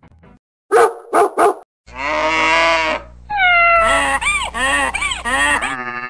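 A run of farm-animal sound effects: three short dog barks about a second in, then a longer held animal call, a falling call, and a string of wavering calls that stop just before the end.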